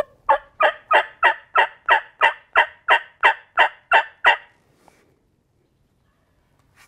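A series of about thirteen evenly spaced hen turkey yelps, roughly three a second, made on a hunter's turkey call to draw in a gobbler.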